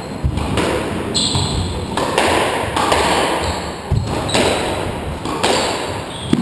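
Squash rally: the hard rubber ball smacking off rackets and the court walls about once a second, with a short high squeak about a second in, typical of a squash shoe on the wooden floor.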